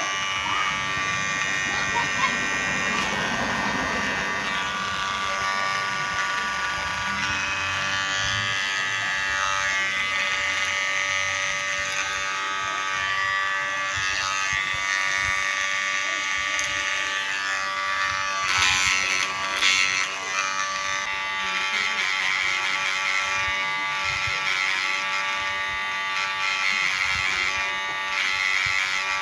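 KIKI cordless hair clipper running with a steady buzz, its freshly sharpened blade being run in before testing. About two-thirds of the way through there is a brief louder, rougher stretch.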